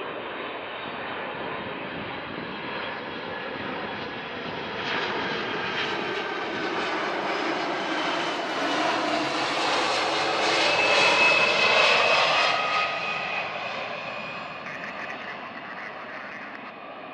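Jet airliner passing low on its landing approach: engine noise with a high fan whine builds to its loudest about two-thirds of the way through, then fades away.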